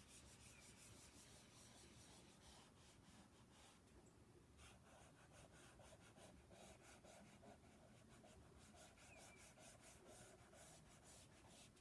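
Faint rubbing of a hand on paper, blending soft pastel into the drawing.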